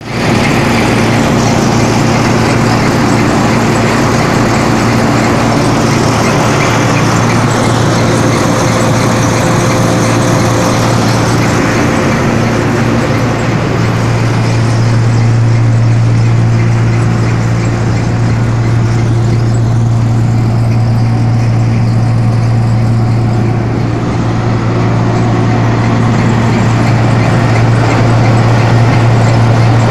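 John Deere combine harvester running stationary, its engine and belt- and chain-driven machinery turning over steadily, with a strong low hum that grows a little stronger about halfway through.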